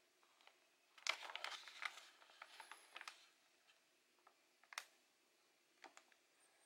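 Faint handling noise: a flurry of soft rustles and ticks about a second in, then two single sharp clicks near the end.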